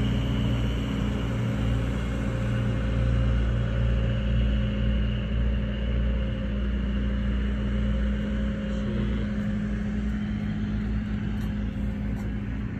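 A steady low engine or motor drone with a few held low tones over a rumble, easing off slightly about nine seconds in.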